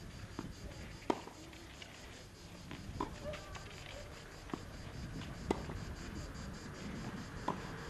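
Tennis ball hit back and forth with rackets in a rally on a clay court: about six sharp pops, one every second or two, over faint background voices.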